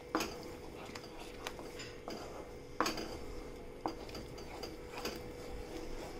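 A black spatula stirring thick cheese sauce in a nonstick pan, with scrapes and sharp knocks against the pan about once a second, the loudest about three seconds in. A faint steady hum runs underneath.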